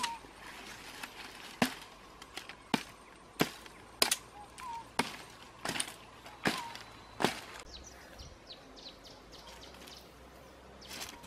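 About nine sharp chopping strikes, roughly two-thirds of a second apart, as a blade hacks through a woody forest vine; they stop about seven seconds in. Faint bird chirps sound in between and after.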